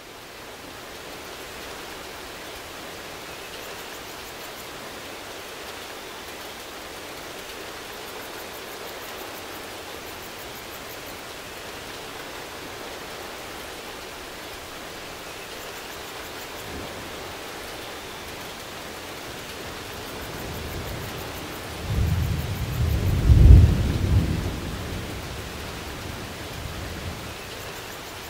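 Steady rain falling, with a low roll of thunder about three-quarters of the way through that swells for a few seconds and fades; the thunder is the loudest sound.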